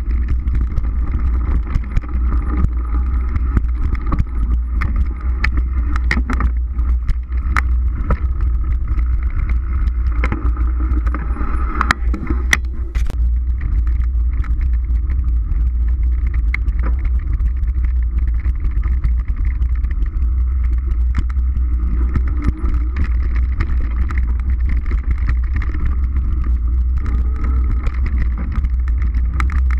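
Mountain bike ridden fast along a dirt forest trail: a steady heavy wind rumble on the action camera's microphone, tyre noise on the dirt, and frequent sharp clicks and rattles from the bike over bumps.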